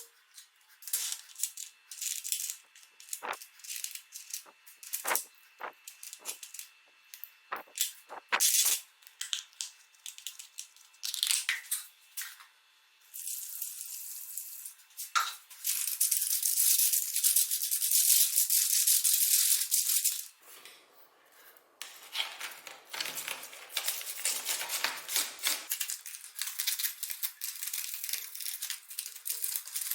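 Keyboard parts being handled and cleaned: a run of separate clicks and taps, then several seconds of steady hissing, then a stretch of scratchy rattling.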